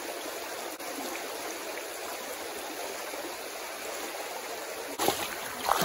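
Shallow rocky stream rushing over stones in a steady, even rush, turning louder and rougher in the last second.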